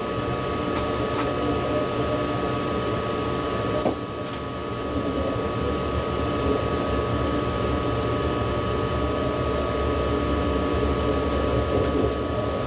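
Steady hum of an ICE high-speed train heard inside the driver's cab, with a thin steady whine over it and a single click about four seconds in.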